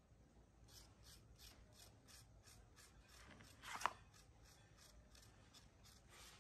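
Metal spoon scraping the flesh of a halved apple in short, rhythmic strokes, about four a second, with one stroke louder than the rest about four seconds in.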